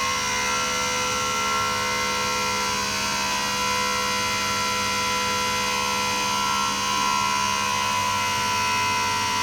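Steady electric whine and hum of an aircraft's systems powered up, several fixed tones holding unchanged.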